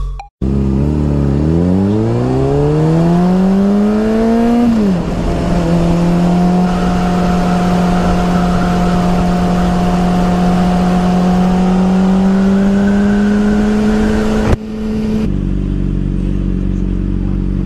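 2007 Honda CBR600RR's inline-four engine under way: it revs up through a gear, its pitch drops sharply at about five seconds with an upshift, then holds a steady note that rises slowly while cruising. Near the end it falls off to a lower, even note as the bike slows.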